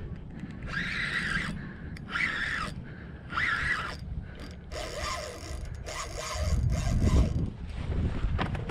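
Penn Battle II 2500 spinning reel ratcheting in short repeated bursts while a big snook is fought on light tackle. A louder low rumble comes in about two-thirds of the way through.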